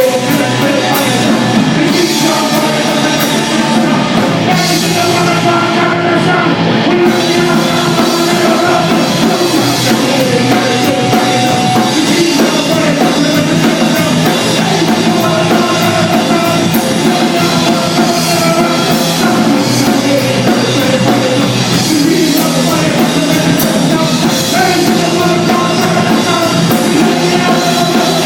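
Loud rock music from a full band with a drum kit, playing continuously without a break.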